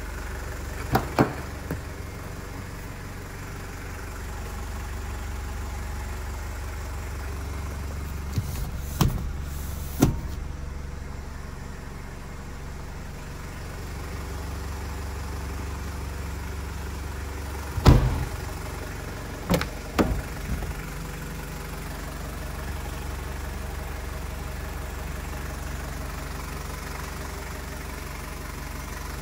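Toyota Land Cruiser Prado's 3.0-litre 1KZ-TE turbo-diesel idling steadily, with several sharp clunks of the truck's doors being opened and shut, the loudest about two-thirds of the way through.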